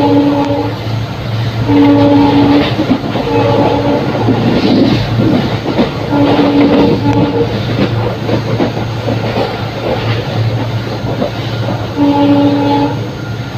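WDG4 diesel locomotive's EMD multi-tone horn sounding in several separate blasts as the express passes at speed. Between and under the blasts, coaches' wheels clatter rhythmically over the track.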